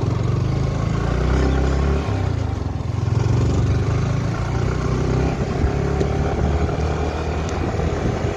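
Yamaha sport motorcycle's engine running while the bike is ridden at low speed, its note dipping briefly about two and a half seconds in and then picking up again.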